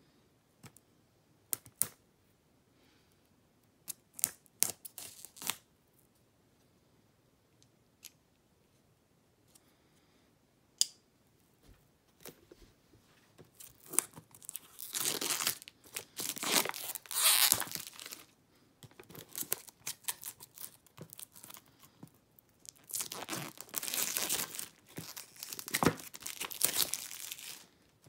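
Clear plastic shrink wrap being torn and peeled off a small cardboard earbuds box, crinkling. A few scattered taps and clicks come first, then two long stretches of tearing and crinkling, one about halfway through and one near the end.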